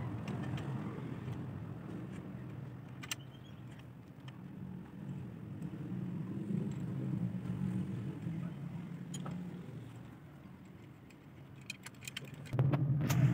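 A steady low motor drone in the background, growing louder near the end, with a few light metallic clinks as a tractor clutch pressure plate and its parts are handled.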